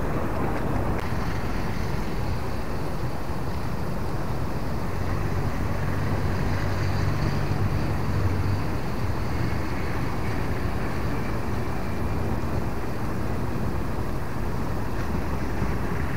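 Steady outdoor noise of wind and passing road traffic, with a low engine hum that swells about four seconds in and fades near nine seconds.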